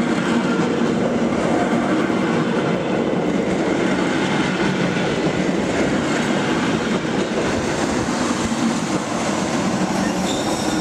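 ČD class 451 electric multiple unit rolling along the platform as it arrives: a steady, loud rumble of wheels on the rails with a low hum.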